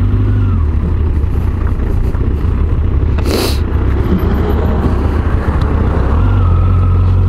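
Yamaha XJ900 Diversion's air-cooled inline-four running steadily while riding along; about six seconds in the engine note rises a little and grows stronger as it pulls harder. A short rush of noise about three and a half seconds in.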